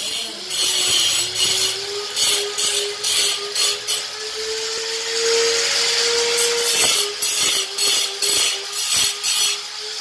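Handheld electric die grinder carving marble: the motor gives a steady whine, with repeated short bursts of high grinding hiss as the bit is pressed into the stone. There is a lull in the grinding about midway. The whine's pitch dips slightly at times under load.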